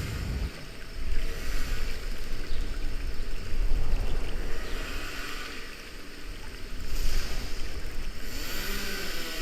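Rushing, splashing water around a river-rapids raft, with wind rumbling on the microphone and surges in level every second or two.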